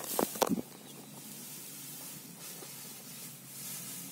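Outdoor field ambience: a faint, steady hiss with a low hum underneath, after a few loud, short rustling bursts in the first half-second.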